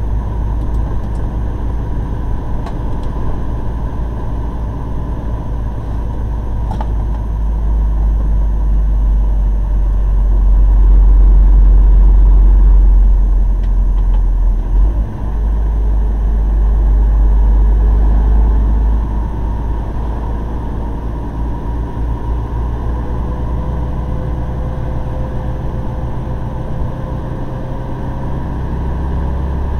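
Heavy truck's diesel engine and tyre noise heard inside the cab while driving, a deep steady rumble that swells louder for several seconds about a third of the way in, then eases back.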